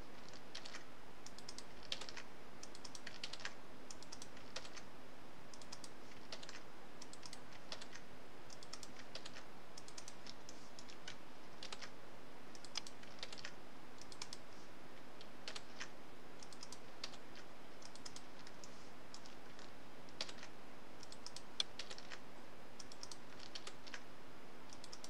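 Computer keyboard keys and mouse buttons clicking sparsely and irregularly, one or two light taps at a time, over a faint steady hum.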